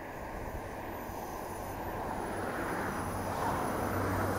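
Diesel multiple-unit passenger train approaching along the line, its engine hum and wheel noise growing steadily louder.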